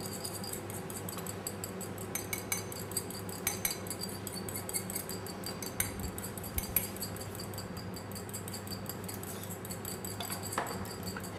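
Fork beating a vinaigrette in a glass bowl, its tines clicking rapidly against the glass as the raspberry vinegar, salt and oil are emulsified.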